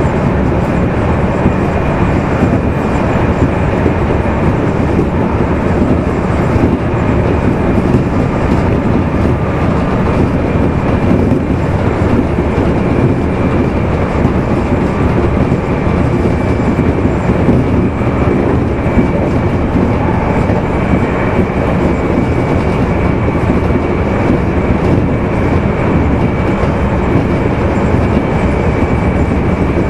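Running noise of a Meitetsu 2200 series electric train, recorded aboard the motor car Mo 2310 while travelling at a steady pace: an even rumble from the wheels and rails with a faint high whine over it.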